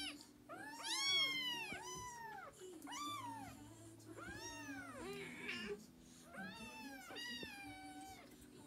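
Siamese kittens meowing over and over: about nine high-pitched cries, each rising and falling.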